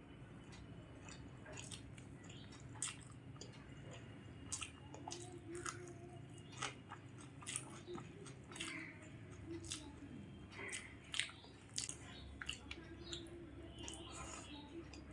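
A person chewing mouthfuls of rice and fried potato (aloo bhaja) close to the microphone, with short smacks and soft crunches at irregular intervals.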